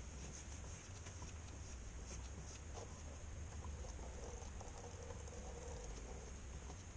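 Faint patter and light ticks of a clear plastic drip tray being handled under a diesel fuel filter housing, over a low steady hum.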